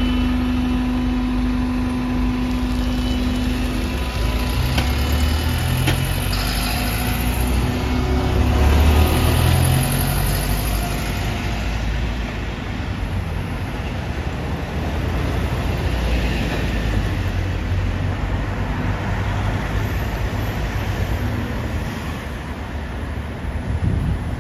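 Engine of a London double-decker bus pulling away at close range, its low note rising and falling as it accelerates, loudest about nine seconds in, over steady road traffic.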